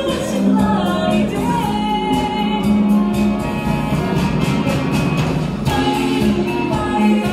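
Cha-cha-cha dance music with a singing voice over a steady beat.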